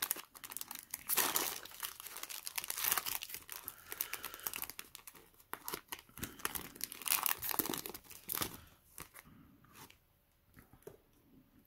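Foil Yu-Gi-Oh! booster pack wrapper crinkling and tearing as it is opened. The crackling stops about nine seconds in, leaving only a few faint ticks.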